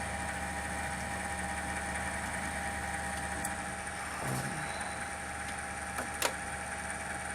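Desktop gaming PC running with a steady hum and rumble, the case vibrating; the owner suspects the liquid-cooling radiator. A couple of short clicks about six seconds in.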